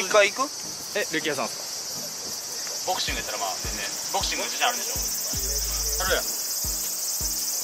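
Cicadas droning steadily and high-pitched in the surrounding trees.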